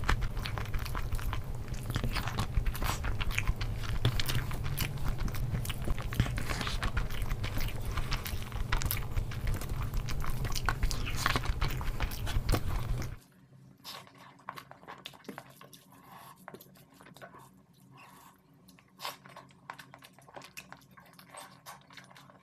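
Close-miked chewing and mouth sounds of eating rice and egg curry by hand, dense with wet smacks and clicks. A little past halfway through the level drops suddenly to a much quieter stretch of sparse eating clicks.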